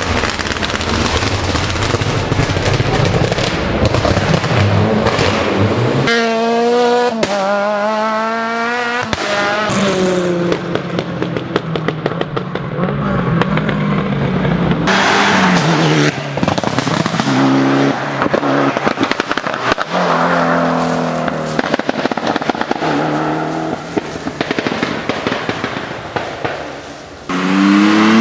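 Competition car engines revving up and falling back off the throttle, their exhausts popping, crackling and banging with backfires. It is several cars in turn, the engine note changing abruptly a few times.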